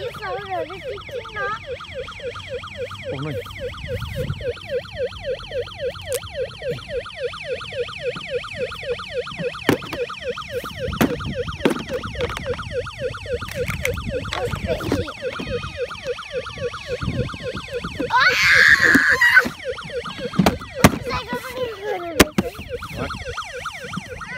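Electronic siren of a battery-powered ride-on toy police motorcycle, a fast repeating warble, with plastic clicks and knocks. A child's brief loud high squeal about three-quarters of the way in.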